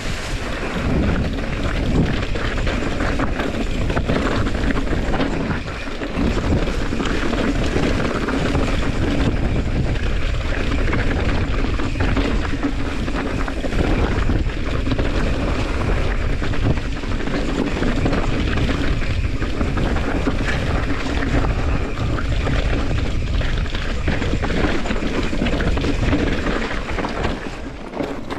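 Wind rushing over the microphone of a handlebar-mounted camera as a mountain bike rolls along a rocky, gravelly singletrack, with tyre noise and the bike rattling over bumps.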